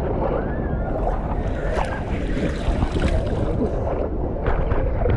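Lazy-river water sloshing and splashing close to the microphone, with wind buffeting it and faint voices in the background.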